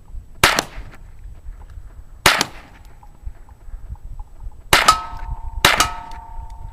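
Four single gunshots a second or two apart, the last three each followed by a ringing, metallic tone from a struck steel target.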